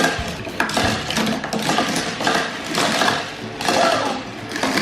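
Die-cast Hot Wheels cars rolling and clattering down a zig-zag plastic track, a busy rattle of small clicks and knocks.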